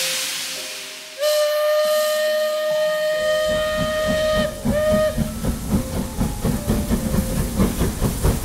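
Toy steam-train sound effect from a BRIO Halloween ghost train's button-activated sound unit: a burst of steam hiss, a long steam whistle followed by a short second toot, then steady rhythmic chuffing.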